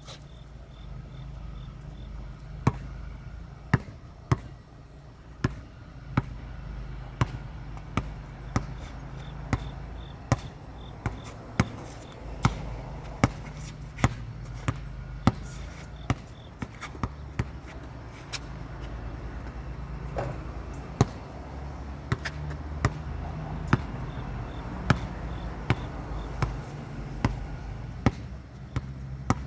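Sharp knocks, irregularly spaced about one a second, over a steady low rumble.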